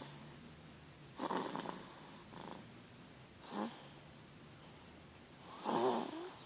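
Sleeping baby snoring: three noisy snoring breaths about two seconds apart, the first and last louder, with a fainter one in between.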